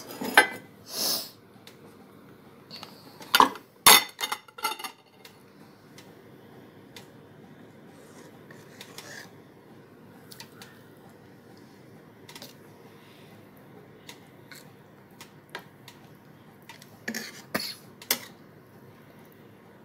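Metal utensils clinking and clattering against a stainless steel cooking pot, in a cluster of knocks over the first few seconds and another a couple of seconds before the end, over a faint steady hiss.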